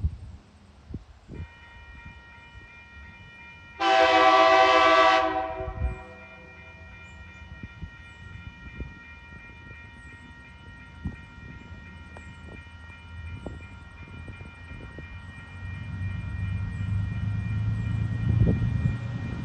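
TasRail TR-class diesel locomotive sounding its horn once for about a second and a half as it approaches a level crossing, over a steady ringing tone from the crossing's warning signal. Near the end the locomotive's low engine rumble builds as it draws near.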